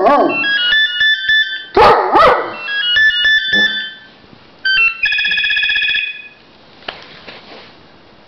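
A telephone plays a ringtone tune of short stepped beeping notes while a dog howls along, giving two short, loud howls about two seconds in. About five seconds in the phone gives a steady electronic ring for about a second, then only a faint click or two follows.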